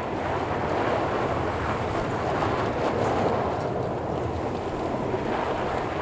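A car's tyres rolling slowly over a gravel and rock road, a steady crunching rumble, with wind buffeting the microphone.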